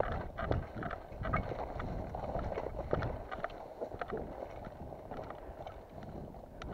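Footsteps of a person walking over rough ground: an irregular series of crunching steps over low rumbling noise, fading a little towards the end.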